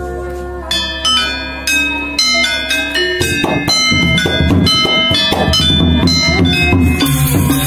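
Balinese gong gamelan playing. A low gong tone rings at first, then bronze metallophones strike single notes, and a little after three seconds the drums and the full ensemble come in loudly, with a bright metallic wash joining near the end.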